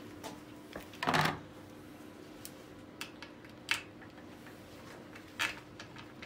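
Tools and small metal parts being handled: a series of light metallic clicks and knocks, with a longer clatter about a second in and two sharper clicks later on, over a steady low hum.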